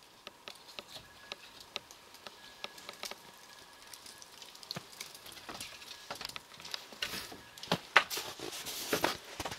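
Melting snow dripping and crackling: an irregular patter of small drips and ticks that grows denser and louder in the last few seconds.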